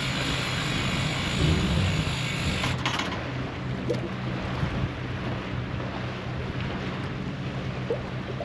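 Small sailing boat under way on open water: wind and water rushing steadily over a low, even hum, with a brief knock about three seconds in.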